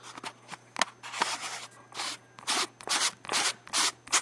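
A wide-angle converter lens being screwed onto a camcorder's lens thread by hand: a quick run of about a dozen short scrapes and clicks, roughly three a second.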